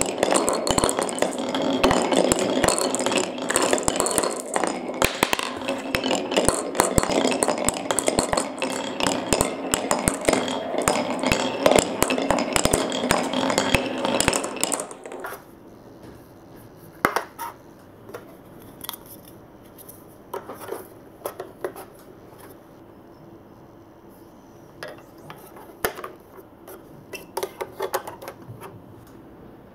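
Many crackle glass marbles rolling down a painted wooden marble-run track and clacking against each other as they pile into the cup at its end: a dense, continuous clatter that stops suddenly about halfway through. After that, only scattered clicks of plastic marble-run pieces being fitted together.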